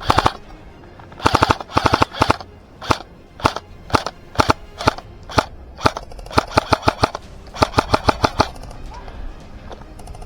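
Airsoft gun firing: rapid bursts of shots near the start and again about six to eight seconds in, with single shots about half a second apart in between.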